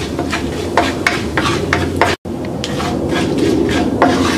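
Wooden spatula scraping and stirring whole spices and cumin seeds around a kadai of hot oil, a run of short scrapes over a steady sizzle. The spices are being tempered in the oil. The sound cuts out for an instant about two seconds in.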